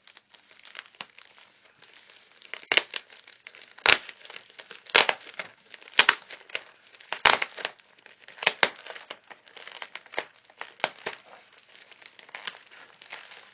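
Plastic postal satchel crinkling and crackling as it is handled and folded open. Irregular sharp crackles, loudest in the middle stretch, softer rustling toward the end.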